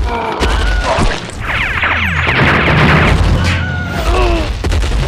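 Cartoon fight sound effects: a steady low rumble and booms, under short squeaky, sliding cries, with a rush of sliding tones a second and a half in.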